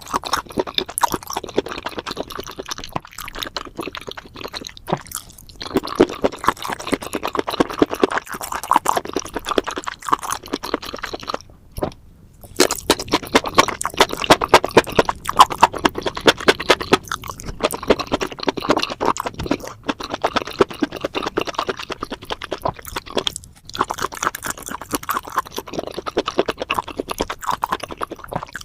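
Close-miked wet chewing and mouth smacking as spicy seafood and mushrooms are eaten, in continuous runs of rapid smacks with brief pauses about twelve and twenty-three seconds in.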